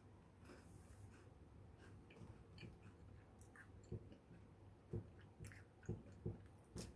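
Faint chewing of a KitKat chocolate wafer bar, mouth closed, with a few soft mouth clicks in the second half.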